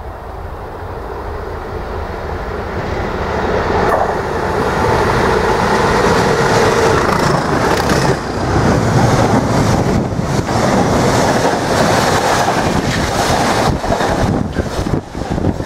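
A pair of British Rail Class 37 diesel locomotives with English Electric V12 engines, opened up under power, approach and pass, growing louder over the first few seconds. After they pass, the freight wagons roll by with a rapid clatter of wheels over the rail joints.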